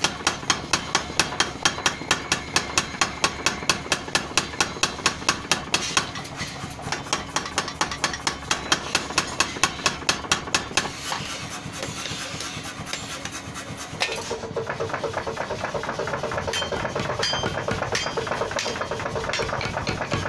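Power hammer pounding red-hot scrap steel into a trowel blank, with rapid, even blows about four to five a second, which grow weaker after about six seconds. From about fourteen seconds in, a faster, denser, steadier clatter takes over.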